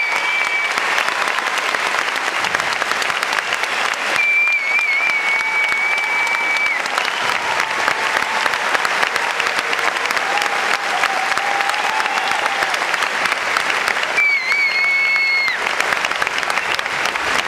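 Audience applauding steadily, with a long, high whistle from the crowd three times: at the start, from about four to seven seconds in, and near the end.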